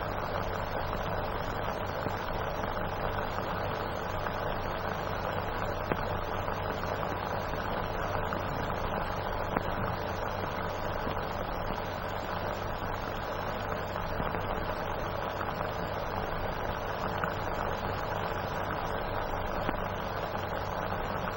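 Steady hiss with a low, even hum, the background noise of an old film soundtrack, with a couple of faint clicks and no other distinct sound.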